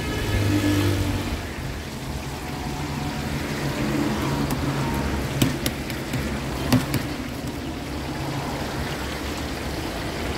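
Chapli kababs sizzling in a large karahi of hot oil, with a vehicle engine running steadily underneath, louder in the first second or so. Two sharp clicks come about halfway through.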